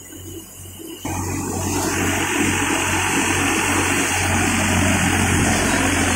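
Tractor-driven haramba thresher running on the Farmtrac 45's three-cylinder diesel: a steady low engine and drum drone with a loud rushing noise of straw and grain. The rushing jumps up suddenly about a second in and then holds steady. The tractor is taking some load, with its RPM pulled down a little.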